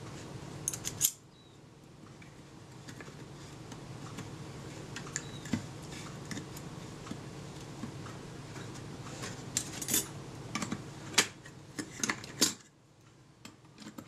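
Small metal clicks and scrapes as the shutter assembly of an APM box camera is fitted back into the camera body: a few clicks about a second in, then scattered light clicks, and a busier run of sharper clicks in the last few seconds.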